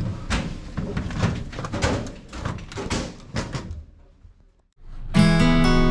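Acoustic guitar music strumming in about five seconds in, after a moment's hush; before that come indistinct irregular sounds, much like voices.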